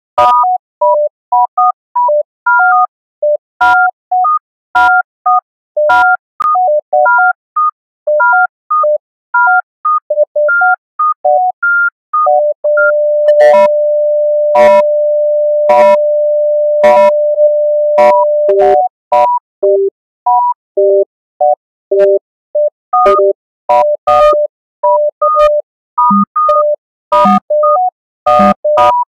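Virtual monome sequencer built in Pure Data, playing short pure electronic beeps that step among a handful of pitches in a fast looping pattern, with sharp clicks mixed in. About halfway through, one low beep is held as a steady tone for around six seconds before the stepping pattern resumes.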